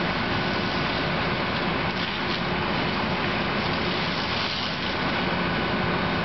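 Steady rushing noise of a burning van being put out, with a faint steady hum and a few crackles.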